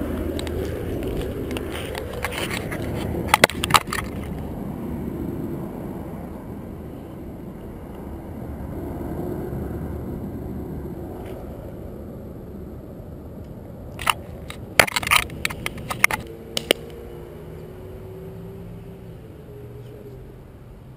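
Low rumbling handling noise from a camera being carried and moved about, then a quick run of sharp clicks and knocks about two-thirds of the way in as plastic hockey pucks and the camera are set down on a concrete sidewalk.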